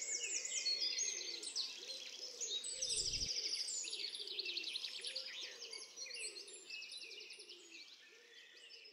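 Many birds chirping and trilling together, a dense chorus of fast repeated notes, fading out toward the end. A brief low thump about three seconds in.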